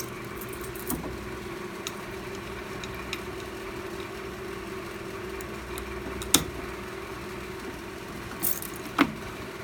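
Key and lock clicks and two sharp clacks, the first the louder, about six and nine seconds in, as a fire alarm pull station is reset with its key. A steady low hum runs underneath.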